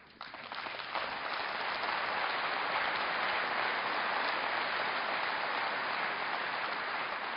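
Audience applauding. The clapping builds up over about the first second, holds steady, and then tapers off near the end.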